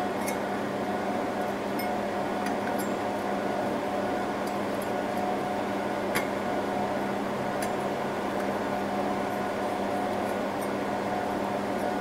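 Steady machine hum with a low tone, and a few faint metallic ticks as a screwdriver turns a CPU heatsink screw on a rack server.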